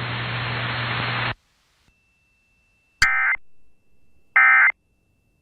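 Weather radio hiss with a low hum cuts off about a second in. After a pause comes a click, then two short, harsh digital data bursts about a second and a half apart: the Emergency Alert System SAME end-of-message tones that close an alert.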